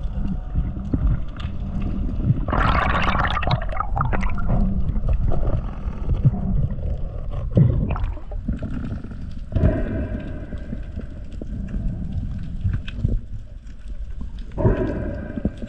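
Water sloshing and gurgling around a camera moving in and out of the sea, with irregular louder splashing bursts.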